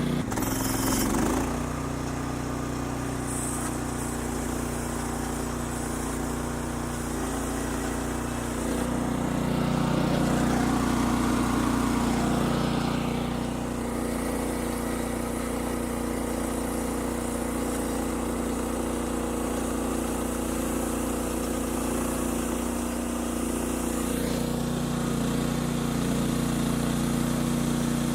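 Gasoline engine of a portable bandsaw sawmill running steadily at a fixed speed. It grows louder for a few seconds near the middle.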